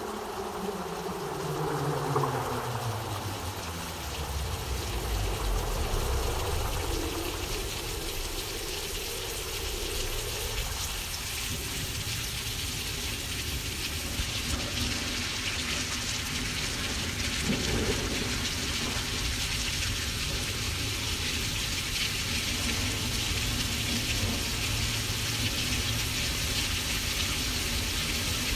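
Synthesized imitation of a thunderstorm: a steady rain-like hiss over a low rumble, with several tones sliding down in pitch during the first few seconds.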